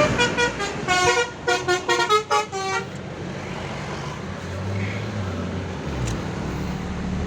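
Bus's basuri telolet musical horn playing a quick tune of several changing notes for about three seconds, followed by the bus engine running amid traffic noise.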